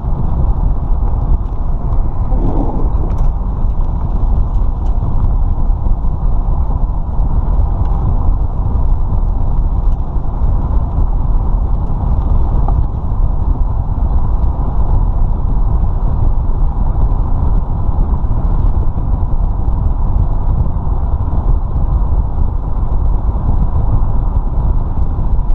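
Steady rush of wind and road noise from a vehicle driving along at speed, picked up by a camera mounted on the outside of the vehicle.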